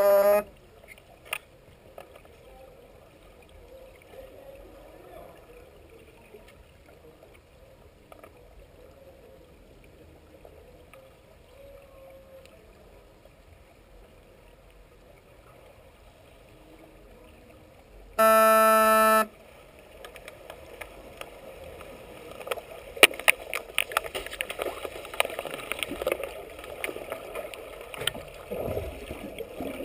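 Heard underwater in a pool: a loud, steady signal horn sounds once for about a second a little past the middle, and the tail of another horn note cuts off right at the start. In between there is only a faint water hiss. From about two-thirds of the way in, a growing clatter of sharp clicks and knocks with bubbling sets in as underwater hockey players play on the tiled bottom.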